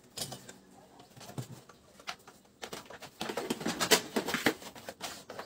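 Clicks and knocks of a circular saw being handled and lifted off a wooden workbench, a few light taps near the start and a rapid clatter in the second half.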